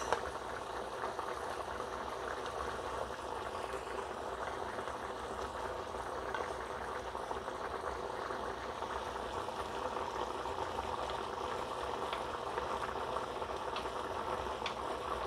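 Shallow water with a little cooking oil bubbling steadily at a boil in a frying pan, par-boiling chive dumplings before they are pan-fried.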